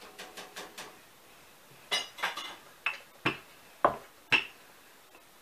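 Wooden rolling pin being worked back and forth over dough on a wooden table, giving a string of short clacks and knocks. The knocks come louder and roughly every half second from about two seconds in.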